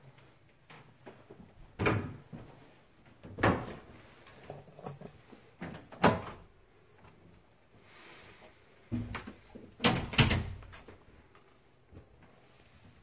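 Wooden closet doors being opened and handled: a string of knocks and clicks, the loudest about two, three and a half, six and ten seconds in.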